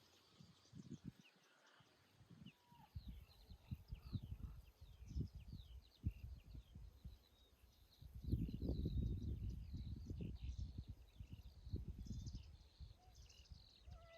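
Small birds chirping, with many quick short calls throughout and more of them in the second half, over an irregular low rumble that grows louder about eight seconds in.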